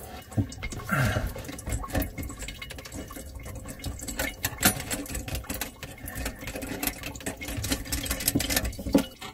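Large mounting nut and washer being hand-threaded onto a kitchen faucet's shank from under the sink: a steady run of quick clicks and scrapes, with hoses and fittings rubbing.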